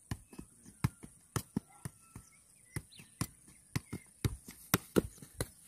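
Football being juggled keepy-uppy style: a quick, irregular run of short, sharp thuds as the ball strikes the player's feet and legs.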